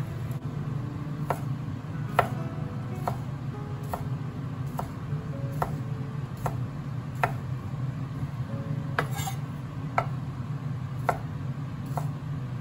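Kitchen knife slicing small sausages on a wooden cutting board, the blade knocking the board about once a second.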